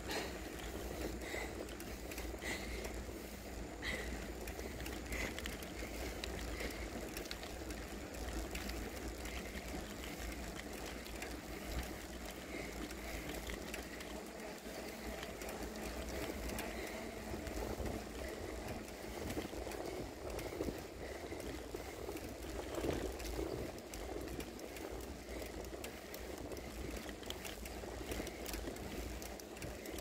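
Wind rushing over the microphone and the rolling noise of a bicycle on a paved road, a steady rumble with faint ticks in the first few seconds.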